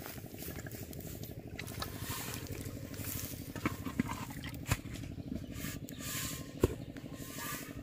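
A few sharp knocks and clinks as a plastic bowl and a tin can are handled in and around an aluminium cooking pot, the loudest near the end with a brief ring. A steady, fast pulsing background runs underneath.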